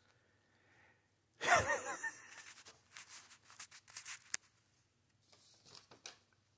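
A dog eating dog food off a paper plate: crunching chews and the crinkle of the paper plate, in sharp irregular clicks. It opens with one loud, brief scrape with a wavering pitch about a second and a half in.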